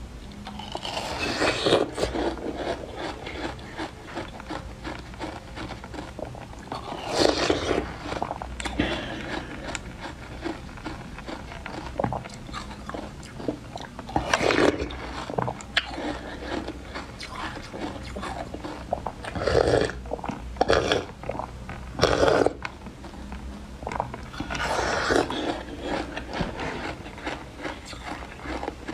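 Bites crunching into a hard block of frozen milk ice, with the crackle of chewing ice between them. There are about seven loud bites, spread out every few seconds.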